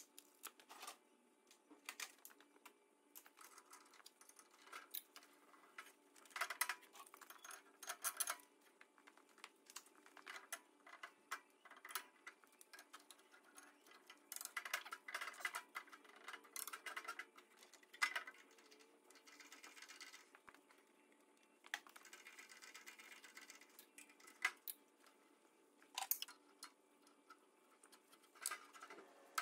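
Faint, irregular light clicks and taps, with no steady motor or machine sound.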